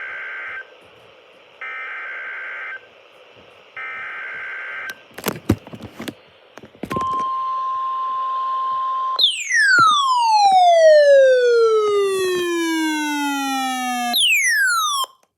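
NOAA Weather Radio emergency alert: three short bursts of buzzing SAME data header, a few crackling clicks, then the steady 1050 Hz weather alert tone for about two seconds. It gives way to a loud electronic tone falling steadily in pitch for about five seconds, then a second, quicker falling sweep that cuts off near the end.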